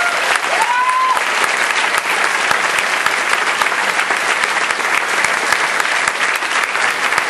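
Audience applauding steadily, a dense clatter of many hands clapping, with a brief rising call from someone in the crowd about a second in.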